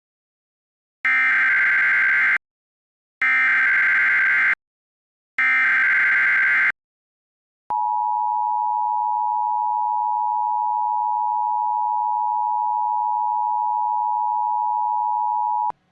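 Emergency Alert System broadcast tones: three short bursts of SAME header data tones, a harsh buzzing screech that encodes the Child Abduction Emergency (Amber Alert) message, then about eight seconds of the steady two-tone EAS attention signal, which cuts off abruptly near the end.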